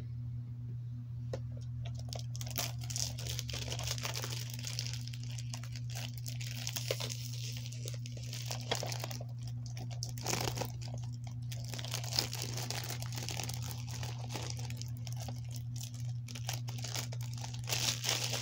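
Plastic shrink wrap crinkling and tearing as it is peeled off a DVD case, in quick irregular crackles. A steady low hum runs underneath.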